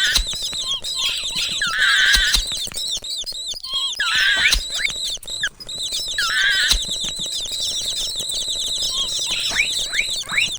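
Mouse squeaking sound effects: a steady stream of rapid, high-pitched squeaks and chirps, with a louder wavering squeal about every two seconds.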